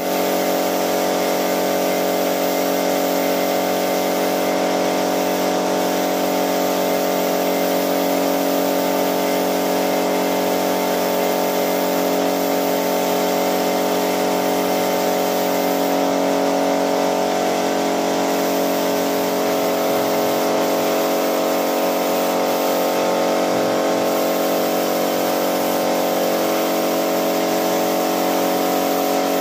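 A small portable air compressor running steadily, with a spray gun hissing as it sprays melamine wood polish onto wood.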